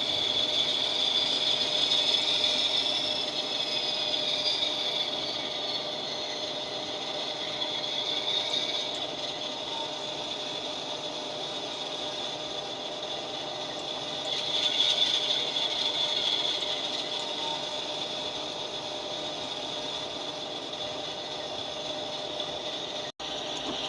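Model diesel locomotive running, a steady high whine with pitch glides and a light mechanical rattle, swelling twice.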